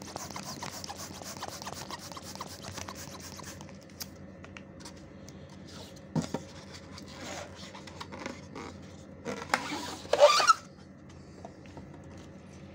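Latex balloons being handled: rubber rubbing and scraping for the first few seconds, then scattered light clicks, and a loud, short squeaky rub about ten seconds in.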